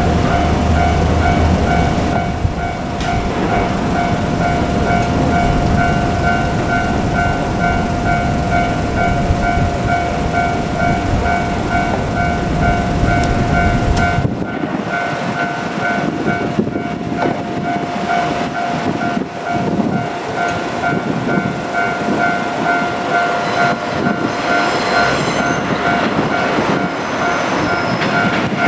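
A level-crossing warning bell rings on and on in a steady pulsing tone while a JR Kyushu KiHa 47 diesel railcar pair runs past with a heavy rumble. The rumble drops away abruptly about halfway through, leaving the bell ringing.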